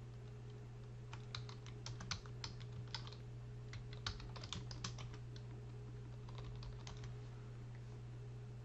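Typing on a computer keyboard: a run of quick keystrokes starting about a second in and thinning out after about five seconds, over a steady low hum.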